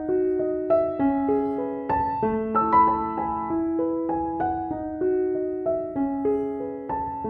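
Background piano music: a gentle melody of struck notes played at an even pace.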